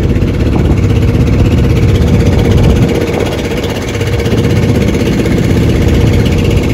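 A small engine running steadily at an even speed, dipping slightly in loudness for about a second partway through.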